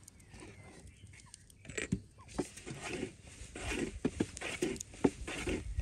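Chickens clucking low in short, irregular notes, starting about a second and a half in.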